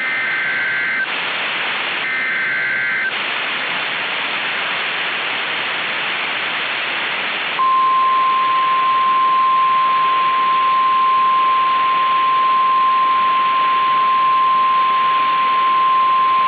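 Mock NOAA Weather Radio tornado-warning alert: the second and third SAME data header bursts warble over radio static about a second apart, then static alone, then the steady single-pitch 1050 Hz warning alarm tone starts about halfway through and holds. The header bursts encode the warning for receivers, and the 1050 Hz tone signals that a warning follows.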